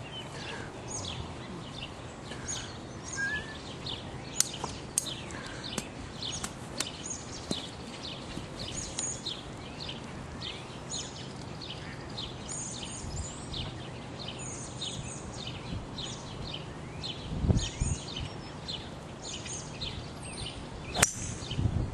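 Birds chirping, many short high chirps repeating throughout. Near the end, a single sharp crack of a driver striking a golf ball off the tee.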